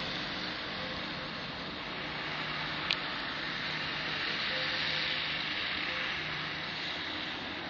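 Steady outdoor background hiss with a faint low hum, and a single short click about three seconds in.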